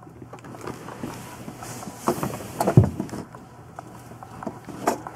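Close rustling and scattered soft knocks, as of hands, clothing and bedding moving right by the microphone, with a louder bump a little under three seconds in.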